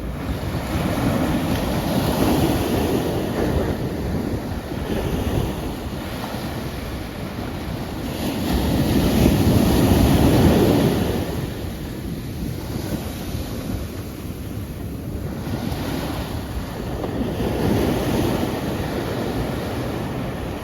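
Ocean waves breaking and washing in, with the surf swelling and falling away in slow surges, the biggest about halfway through.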